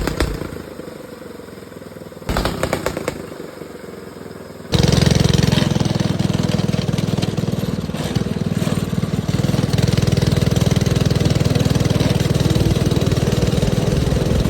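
Small go-kart engine being started: two short rattling cranking attempts that don't catch, then it fires about five seconds in and keeps running steadily.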